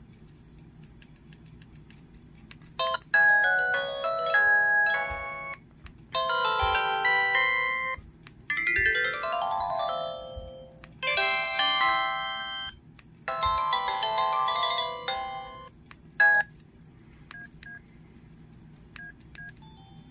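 LG CG225 phone's built-in alert tones played through its small speaker one after another: about six short melodic tones of around two seconds each with brief gaps, one of them with sliding pitches. A few faint short beeps follow near the end.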